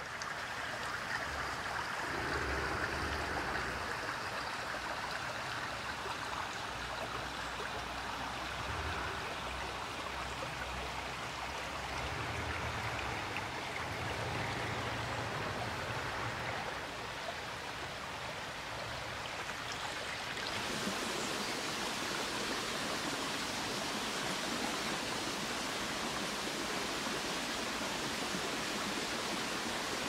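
Steady rushing forest ambience with no distinct events. About twenty seconds in it changes abruptly to a brighter, hissier rush.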